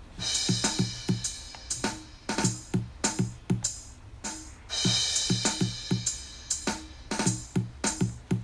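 Programmed drum pattern from a Scratch drum machine built with Music-extension drum sounds in a repeat loop. Bass-drum thumps and sharp hits keep a steady beat, with a cymbal crash at the start and again about halfway through as the pattern repeats.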